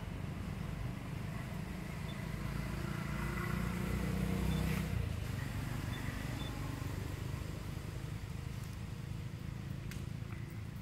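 Low rumble of a passing motor vehicle, growing to its loudest about halfway through and then easing off.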